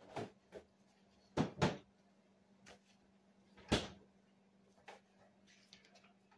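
Separate knocks and thumps of work in a home kitchen, over a faint steady hum: a double thump about a second and a half in and a single sharper knock near four seconds, with a few lighter knocks around them.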